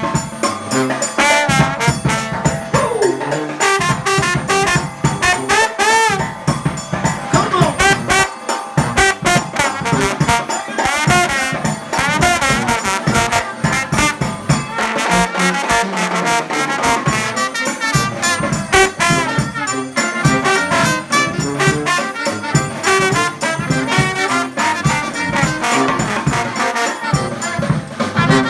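New Orleans-style brass band playing live: trumpet and trombone lines over a quick, steady beat of sharp percussive hits.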